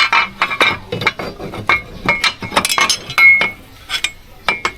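Metal hand tools clinking against metal parts of the scooter as it is taken apart: a quick, irregular run of light strikes, some of them briefly ringing.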